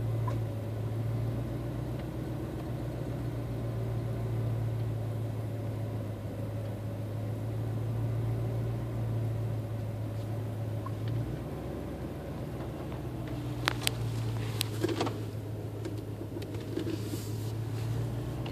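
Truck engine idling, a steady low hum heard from inside the cab. A few sharp clicks come about 14 to 15 seconds in.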